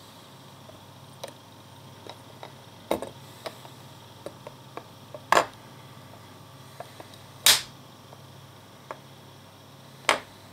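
Hard 3D-printed plastic parts being handled, giving a scatter of light clicks and a few sharper knocks, the loudest about halfway through and again near the end, over a low steady hum.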